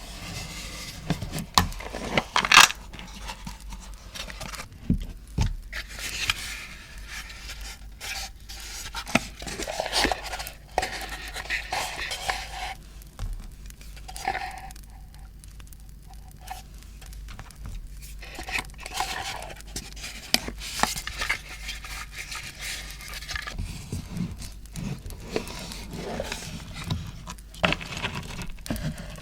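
Close-miked handling of paper and packaging: rustling, scraping and light taps that come and go throughout.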